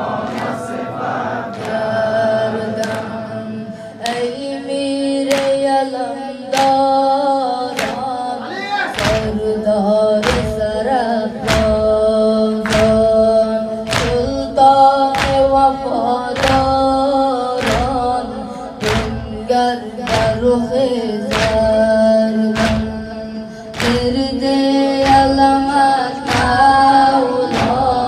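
A boy's voice chanting a Shia mourning elegy (nawha) into a microphone, with a man's voice joining in, in long held sung lines. From about four seconds in, a steady beat of chest-beating strokes (matam) comes in, a little faster than one a second.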